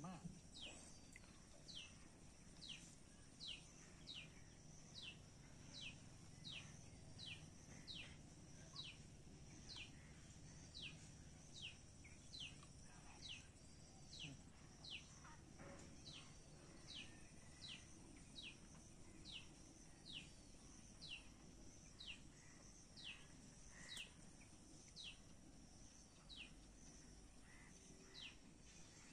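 A bird calling over and over from the pondside trees, a short high note falling in pitch, repeated about every two-thirds of a second, over a faint steady high hiss.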